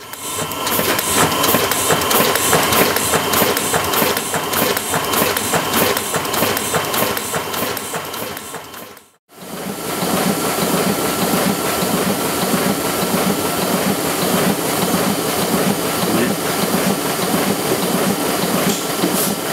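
Small offset printing press running, with a steady mechanical clatter and a fast, even rhythm of its rollers and sheet feed. It breaks off for a moment about nine seconds in, then carries on.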